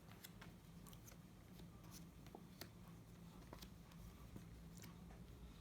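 Faint clicks and light rustling of playing cards being handled and laid out, over a low steady hum.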